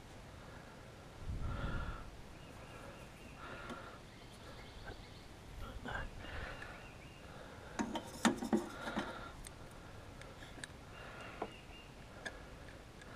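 Quiet work sounds of hand tools and a steel C-clamp being handled: a cluster of sharp metal clinks about eight seconds in, and a brief low rumble about a second and a half in.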